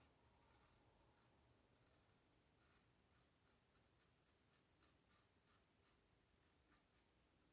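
Faint, quick strokes of a Fatip open-comb slant safety razor scraping short stubble, sparse at first, then about three strokes a second from a few seconds in.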